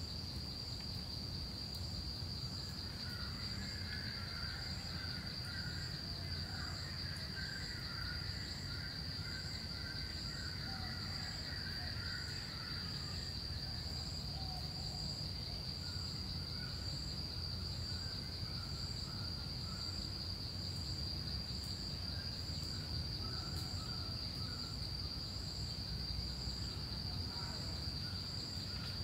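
Forest ambience: a steady high-pitched insect trill throughout, with a second, higher insect call pulsing about once a second. Birds call in the first half, over a low background rumble.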